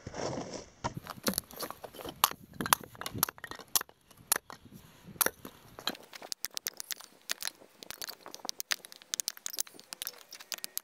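Axe splitting firewood into kindling on a chopping block: a run of sharp, irregular chops and wood cracking, with split sticks clattering down. The blows come quicker and closer together in the second half.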